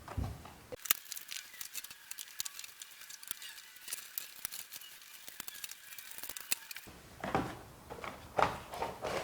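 Hands opening a toy's retail packaging: a long run of small, sharp crackles and clicks, then heavier rustling and handling noise near the end.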